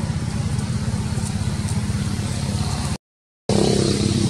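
A steady low rumble, broken by about half a second of dead silence three seconds in, after which it carries on.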